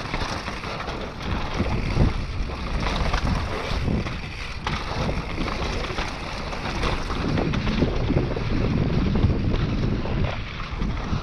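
Wind rushing over the microphone of a mountain bike riding down a dirt trail, with steady tyre roar and scattered knocks and rattles from the bike over bumps.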